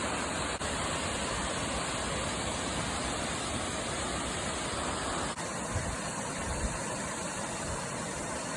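Steady rushing noise of a waterfall, broken by two short dips where the footage is cut. Low gusts of wind buffet the microphone in the second half.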